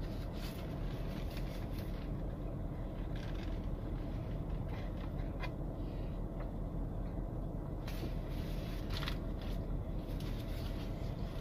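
Chewing and soft mouth noises over the steady low hum of a parked car's cabin, with a few brief crisp clicks about eight and nine seconds in.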